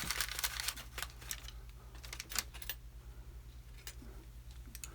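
Scattered small clicks and taps from working the top pins and springs out of a disassembled padlock's bible, thickest in the first few seconds and then thinning out.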